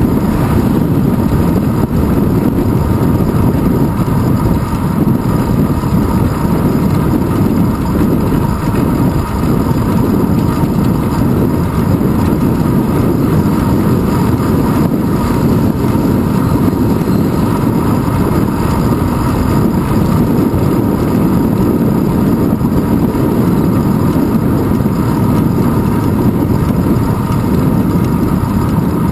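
Steady wind buffeting and road rumble on a handlebar-mounted GoPro Hero 2 as a bicycle rides along a paved road. A faint steady whine runs through it.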